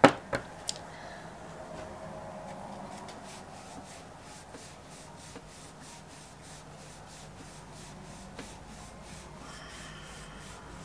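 A deck of tarot cards being shuffled by hand, the cards sliding against each other in a soft steady rub with faint quick ticks. A sharp tap right at the start.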